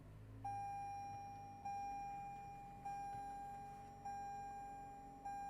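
2024 Toyota RAV4 dashboard warning chime: a clear ding repeating about every 1.2 seconds, five times, each fading before the next, over a low steady hum.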